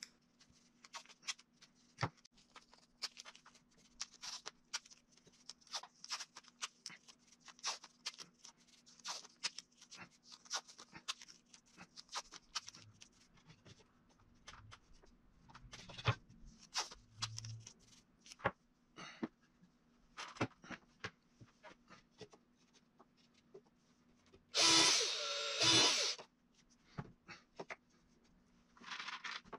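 Hands working with boards and strips of tape on a wooden base: many small taps, clicks and rustles, with one louder noisy burst lasting about a second and a half near the end.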